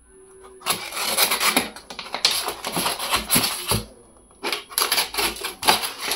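Box cutter blade slicing and scraping through packing tape and corrugated cardboard, mixed with the crackle of the cardboard box being handled. It comes in two scratchy stretches with a brief pause about four seconds in.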